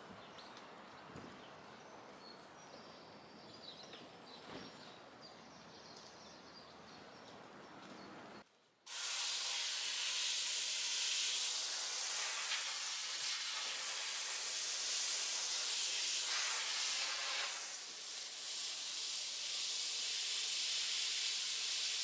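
Faint quiet background for about eight seconds, then, after a brief cut-out, a steady, much louder hiss.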